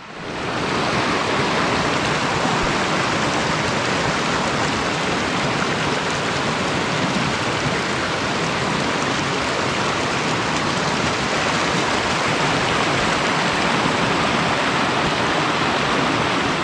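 Fast mountain creek rushing and splashing over rocks, a steady loud rush of white water that swells in within the first second.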